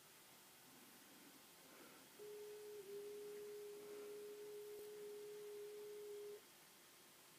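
A faint steady electronic tone from the VHS playback on the TV, lasting about four seconds, with a brief dip in pitch shortly after it starts, over low tape hiss.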